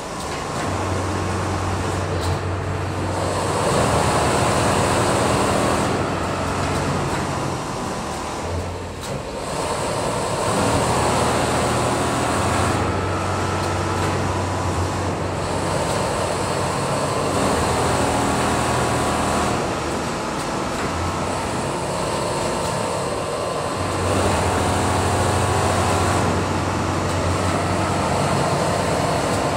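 Richpeace automatic sewing machines running on a garment factory floor, a dense mechanical clatter with a low motor hum that starts and stops in spells of a few seconds.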